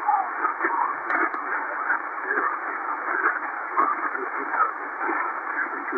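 Shortwave SSB reception on 6676 kHz, the Volmet aviation-weather frequency, from an XHDATA D-808 portable radio's loudspeaker: steady, narrow-band static hiss with faint, garbled snatches of a voice fading in and out.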